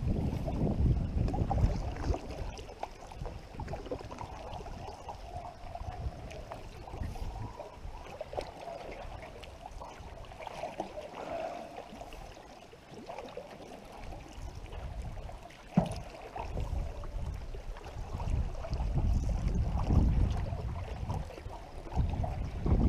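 Canoe being paddled: water swishing and lapping around the hull, with wind buffeting the microphone in gusts that come and go, and a single sharp knock about two-thirds of the way through.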